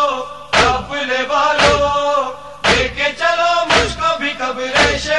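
Nauha lament: voices chanting a drawn-out refrain, kept in time by matam, hands beating on chests in heavy thumps about once a second.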